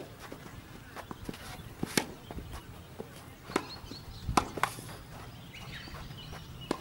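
Tennis rally: a tennis racket strung with Babolat RPM Hurricane polyester string strikes the ball back and forth, giving a sharp pop every one to two seconds. Softer ball bounces and shuffling footsteps on the court fall between the hits.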